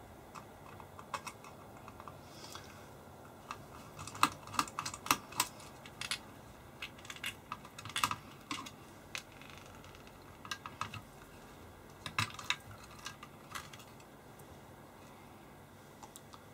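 Screwdriver working the screws and handling of the metal power-pack plate as the battery assembly is taken out of a Keithley 197 multimeter: scattered small clicks and light knocks, bunched about four, eight and twelve seconds in.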